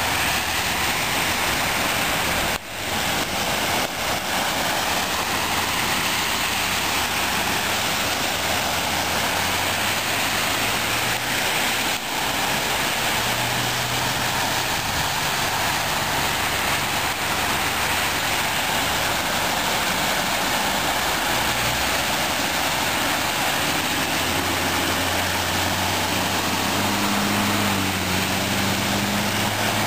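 Vehicles driving through deep floodwater on a street: a steady rush of water and tyre spray, with an engine hum building near the end as a small shuttle bus ploughs through, throwing up water.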